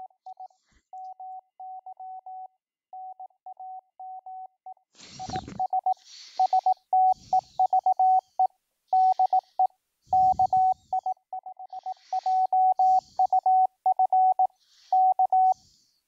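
Morse code tone of about 750 Hz generated by FLDigi at 18 words per minute, spelling "HI MY NAME IS STEVE DE KI5JUF K": practice sending with the transmitter keying switched off, so nothing goes on the air. It gets louder about five seconds in, with a faint hiss behind it.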